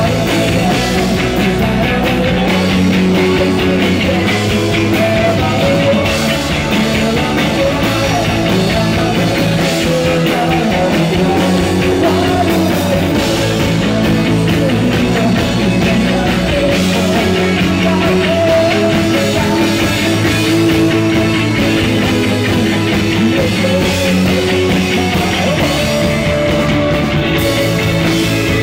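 Loud live rock band playing: electric guitars, bass guitar and drums, with a male lead singer.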